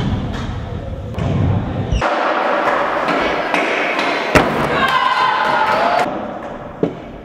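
Stunt scooter wheels rushing over a plywood ramp, then one sharp, loud landing thud about four seconds in. Onlookers shout right after, and a couple of smaller knocks follow near the end.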